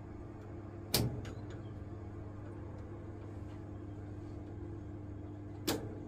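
Two sharp clicks, about a second in and again near the end, from hands and tools working the diverter valve inside a Vaillant boiler, over a steady low hum.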